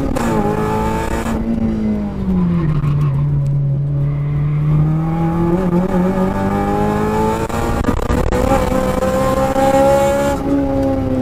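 Honda Civic Type R FN2's 2.0-litre four-cylinder engine heard from inside the cabin at racing speed. The revs fall away about two seconds in as the car slows for a corner, then climb steadily in one long pull while the car accelerates, dropping again near the end.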